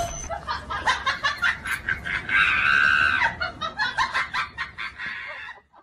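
Shrill screaming and laughter in quick bursts, with one held high cry a little over two seconds in.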